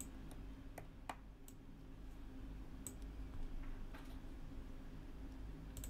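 Faint, scattered light clicks and ticks, about eight in a few seconds, from fingers and small tools working on the internal parts of an opened Sony Xperia Z3 phone, over a low steady hum.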